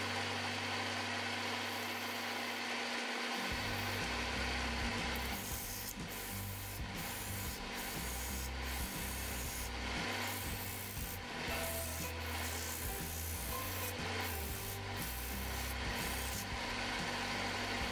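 Sandpaper and a hand tool rubbing against a wooden form turning on a lathe: a steady abrasive hiss over the lathe's low hum. About five seconds in, the hiss turns into uneven pulses.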